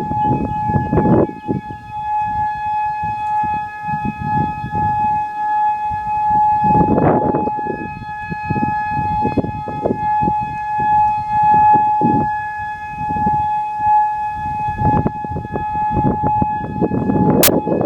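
Outdoor tornado warning siren sounding a steady, unwavering tone, with gusts of low rushing noise underneath. Several sharp clicks come near the end.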